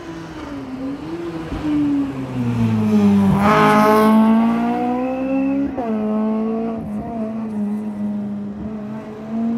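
Rally car engine coming through the junction. The pitch wavers and falls as it slows on approach, then it is loudest about three and a half seconds in, with the pitch climbing hard as it accelerates away. A gear change near six seconds drops the pitch, and the engine pulls on steadily up the road.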